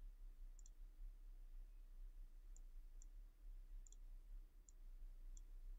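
Faint computer mouse clicks, about six over the few seconds, two of them quick double clicks, over a low steady hum near silence.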